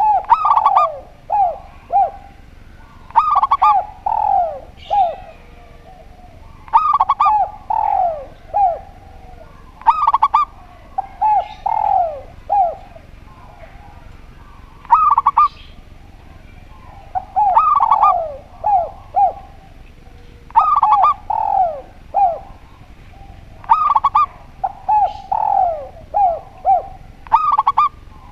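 Doves cooing in a repeated phrase about every three seconds. Each phrase opens with a sharp, rattling high note and runs into three or four falling coos.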